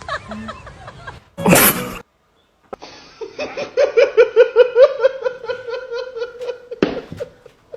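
A short, loud burst of noise about a second and a half in, then, after a brief dead-silent gap, a long rhythmic laugh, "ha-ha-ha" at about five beats a second, that trails off near the end.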